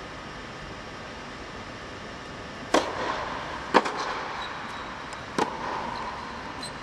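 A tennis ball being struck by rackets and bouncing on an indoor hard court: three sharp pops about a second or so apart, the second the loudest, each trailing off in the hall's echo.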